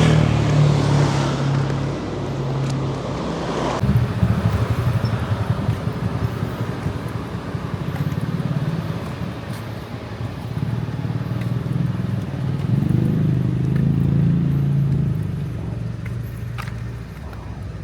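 Road traffic: vehicle engines running, with one vehicle passing right at the start.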